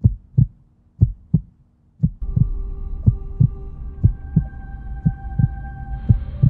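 Heartbeat sound effect: low thumps in lub-dub pairs that quicken to an even beat of about three a second. A steady electronic drone joins about two seconds in and shifts pitch near the end.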